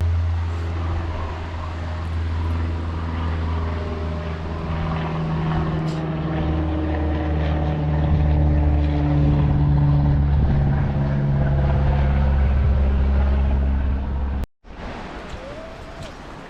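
Nissan Patrol 4WD engine running under steady load while driving, a low, even drone whose pitch shifts slightly. It cuts off suddenly near the end, and a quieter outdoor sound follows.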